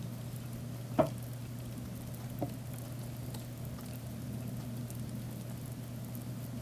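Faint pattering and scratching of many crickets crawling and feeding over paper and a pile of powdered feed, over a steady low hum. A sharp knock about a second in, and a lighter one about a second and a half later.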